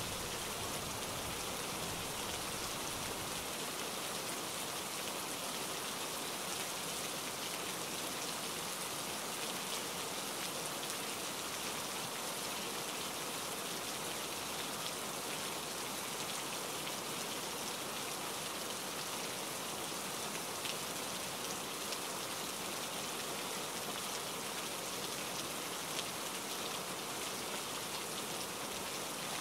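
Steady rain falling, an even hiss with the fine patter of individual drops.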